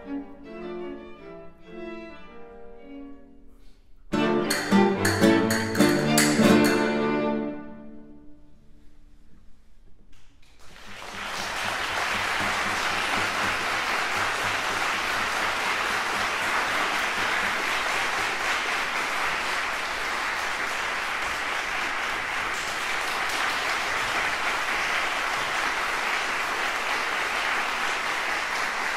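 A classical guitar and string quartet play the closing bars. Loud final chords come about four seconds in and ring away. From about ten seconds in, an audience applauds steadily.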